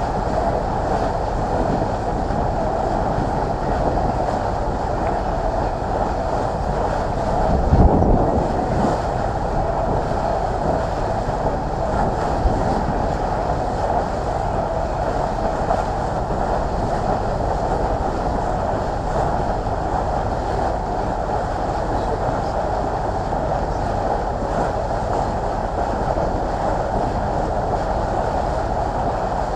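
Small passenger boat under way: a steady engine drone with water rushing past and wind buffeting the microphone, swelling briefly about eight seconds in.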